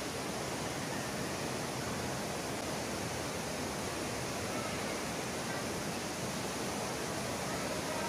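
Panasonic FM15E2 ceiling fan running steadily at speed 5, the highest of its five speeds: a constant, even rush of air from the spinning blades.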